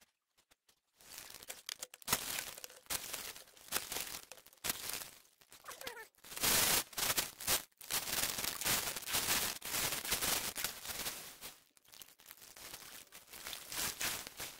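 Shallow creek water splashing and sloshing in irregular surges as it is worked by hand. It starts about a second in and is loudest from about six to eight seconds in.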